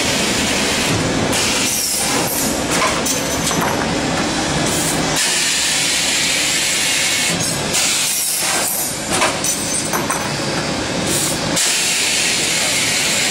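Automatic copper U-tube bending machine running: a steady mechanical clatter with clicks and knocks several times, and hisses of air from its pneumatic cylinders.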